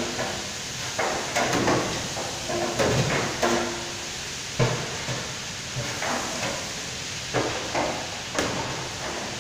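A long paddle knocking and scraping against the sides of a large steel stockpot as it is stirred, giving irregular clunks about once a second. A steady rush of gas burners and the extractor hood runs underneath.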